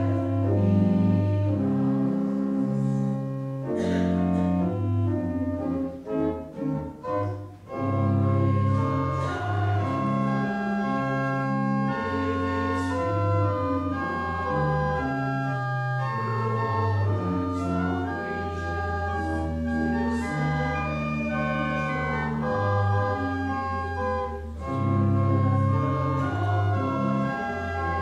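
Organ playing held chords over a stepping bass line, with a few short, detached chords about six to seven seconds in.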